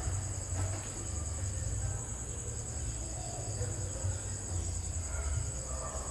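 Steady high-pitched insect chorus, a drone of crickets or cicadas, over an uneven low rumble.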